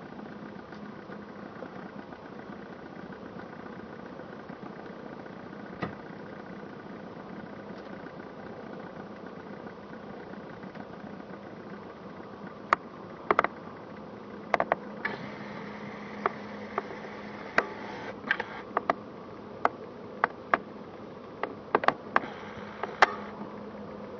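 Distant, steady hum of the Airbus A340-600's four Rolls-Royce Trent 500 turbofan engines as the airliner moves along the runway, with a low, even drone underneath. From about halfway through, a series of sharp clicks cuts in over it.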